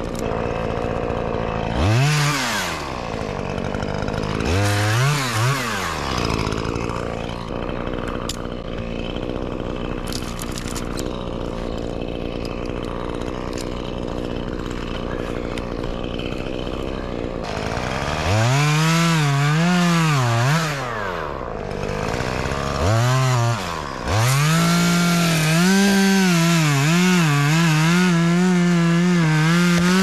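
Chainsaw idling, blipped up twice in the first few seconds, then revved up and down from about 18 seconds in and held at full throttle from about 24 seconds, cutting through a tree limb.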